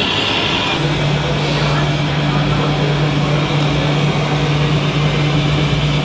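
Busy indoor hall noise with background voices. A steady low drone sets in about a second in and holds.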